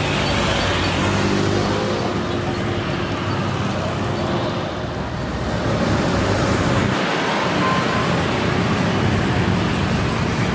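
Jet engines of a Boeing 737-900ER (CFM56-7B turbofans) running steadily as the airliner rolls along the runway, a continuous roar with a faint low hum.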